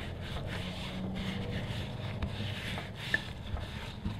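A paper towel rubbed around inside a pressure washer pump's metal housing by a gloved hand, wiping out the oil: a soft, uneven rubbing.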